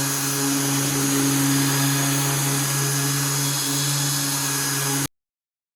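Electric power tool motor running steadily with a constant hum and hiss, cut off abruptly about five seconds in.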